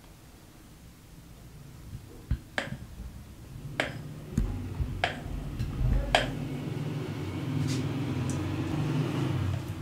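Thick whipped ice-cream mixture being poured from a glass bowl into a glass dish. There are several sharp clicks and knocks between about two and six seconds in, and from about four seconds a soft, steady squelching sound of the batter as it flows and slides out.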